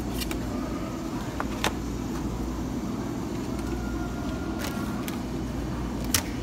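A plastic meal box is handled at a refrigerated food display case over a steady low hum. There is a light click about a second and a half in, and a sharper clack near the end as the case's sliding glass door is slid shut.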